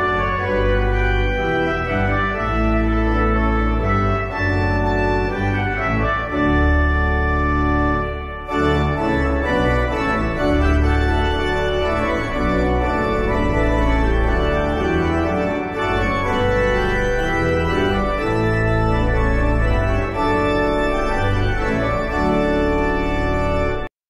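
Organ-style electronic keyboard music playing sustained chords over a heavy low bass line, with a brief dip about eight seconds in and an abrupt stop at the very end.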